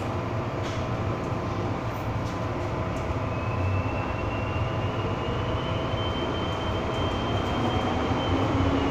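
MTR M-Train metro car running through a tunnel, heard from inside the passenger car: a steady rumble of wheels and running gear. A thin high whine comes in a few seconds in and holds.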